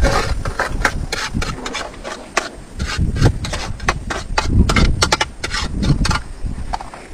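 Irregular sharp crackles and clicks from a pan of food frying over a wood fire as a metal spoon works it, over a low rumble.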